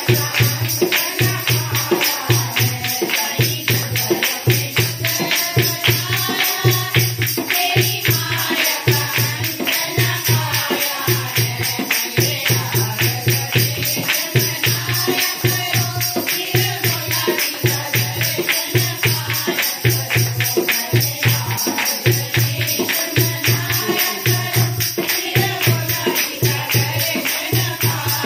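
Devotional Shiva bhajan sung by a group of women, a lead voice through a microphone, over a steady dholak beat and rhythmic hand clapping.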